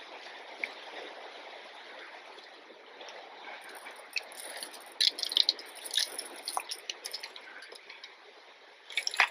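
Steady rush of flowing river water, with a cluster of sharp clicks and short splashy bursts in the middle and another brief burst near the end.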